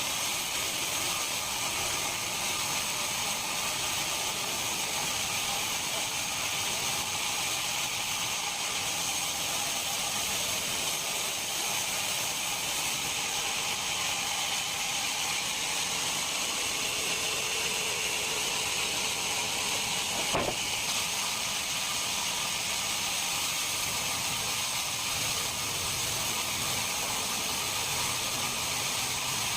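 Steady machine noise: an even hiss with faint high steady whining tones, and one sharp click about twenty seconds in.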